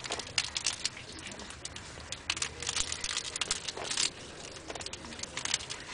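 A baby handling a book, its pages rustling and crinkling in short, irregular bursts.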